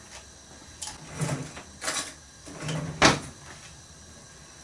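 Clicks and scrapes from handling a small plastic tub of goulash seasoning and a teaspoon as the tub is opened for a spoonful. There are several short knocks, and the loudest is a sharp click about three seconds in.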